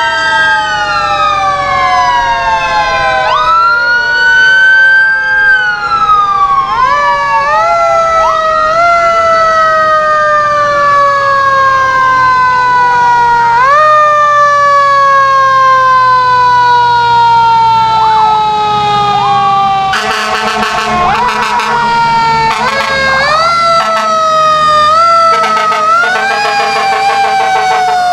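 Several fire truck sirens wailing at once, overlapping, each rising quickly and then falling in long slow glides, over the low running of the passing trucks' engines. Rapid pulsing bursts cut in about two-thirds of the way through and again near the end.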